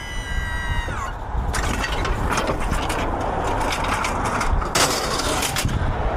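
A steady high-pitched motor whine winds down and stops about a second in, followed by irregular metallic clattering and knocks as scrap is handled.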